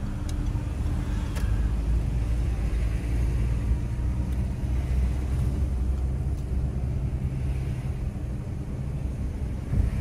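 Peugeot 308 being driven, heard from inside the cabin: a steady low engine and road drone.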